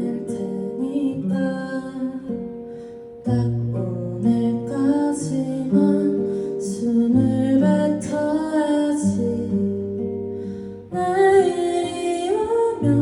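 Music: an acoustic guitar playing plucked chords over held bass notes, changing every second or so, with a melody line above that slides in pitch. The playing drops away briefly about three seconds in and again near the end before coming back in.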